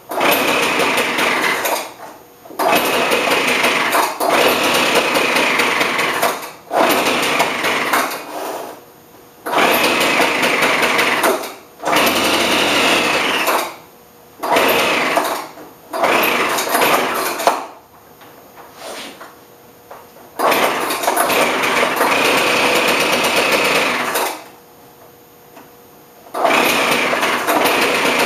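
Craftsman leaf blower's small two-stroke engine with a Walbro carburettor running in about a dozen bursts of one to four seconds, dropping away between each. The engine cannot keep running, a fault the owner later puts down to a broken fuel hose along with a metering diaphragm that had been fitted backwards.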